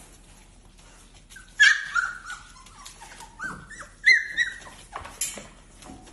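Dog whining and yipping: a run of about eight short, high-pitched whines that fall in pitch, starting about a second and a half in.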